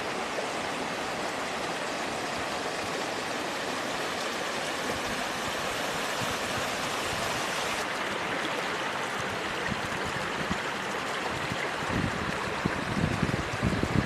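Water rushing over low rock ledges in a small river waterfall, a steady, even rush. About twelve seconds in, low uneven buffeting of the microphone joins it.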